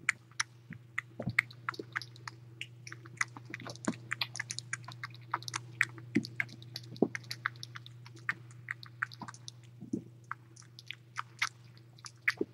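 A kitten suckling from a feeding bottle: rapid, irregular wet smacking clicks, several a second, over a steady low hum.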